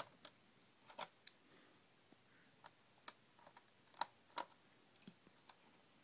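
A few faint, irregular clicks and ticks of a small screwdriver turning a screw out of a laptop's plastic bottom cover.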